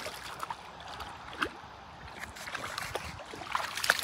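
Labrador puppy wading in shallow lake water, its paws splashing and sloshing in small, irregular splashes.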